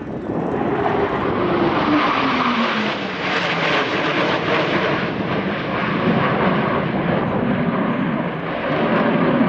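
Jet engines of a four-ship formation of fighter jets flying over: a loud, steady rushing roar, with a tone that drops in pitch over the first few seconds as the jets pass.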